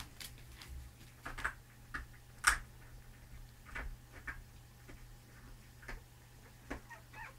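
Sleeping newborn puppies making faint, irregular little clicks and snuffling ticks, over a low steady hum; the strongest comes about halfway through.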